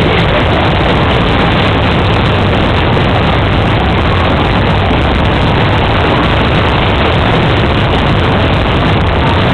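Fairground ride running: a steady, loud rushing noise with no music and no breaks.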